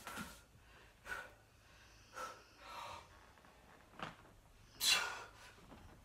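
A man breathing hard under the strain of holding a heavy kettlebell overhead: short, forceful breaths about once a second, the loudest a sharp exhale about five seconds in.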